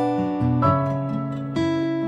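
Background instrumental music, pitched chords that ring on, with a new chord struck about half a second in and again about a second and a half in.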